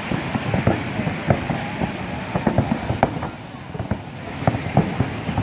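Fireworks going off over the sea as a rapid, irregular string of bangs and crackles, easing off briefly about three and a half seconds in before more bangs follow.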